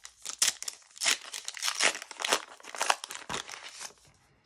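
Panini trading-card booster pack's wrapper being torn open and crinkled by hand: a run of irregular crackling rustles that is loudest in the middle and dies away near the end.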